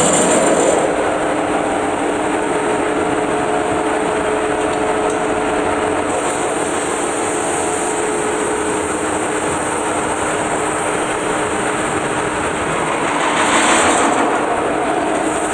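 A large metal-spinning lathe turns a big sheet-metal dish while long hand-levered spinning tools press and rub against the spinning blank. The result is a steady, loud machine drone with a few held tones, and a brighter rubbing hiss that swells right at the start and again about fourteen seconds in.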